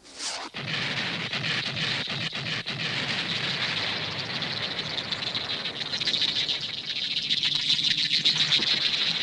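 Cartoon sound effects: a steady, dense, rapid crackling chatter with a few sharp clicks about two seconds in, growing a little louder in the last few seconds.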